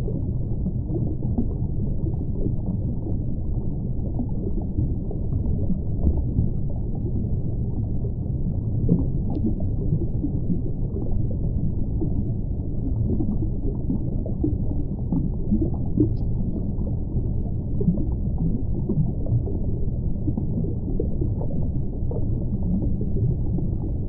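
Underwater ambient sound picked up by a reef camera's hydrophone: a steady low rumble with faint crackles.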